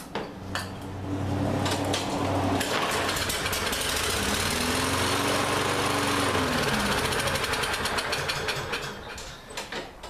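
Four-stroke Lawn-Boy push-mower engine, pull-started on a shot of starting fluid in the air intake. It catches and runs for several seconds, its speed rising and then falling, and it dies near the end. The owner takes this for fuel starvation from a gummed-up carburetor.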